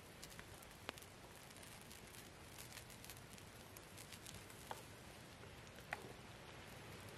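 A wood fire crackling faintly, with three sharp pops.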